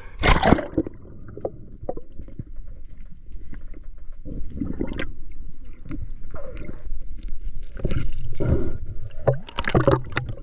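Water sloshing and gurgling around a partly submerged camera, with irregular muffled knocks and splashes. A sharp splash comes just after the start and another near the end.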